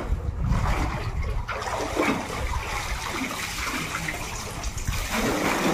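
Well water splashing and churning as a bather grabs the hanging pump pipes and pulls himself up out of the water.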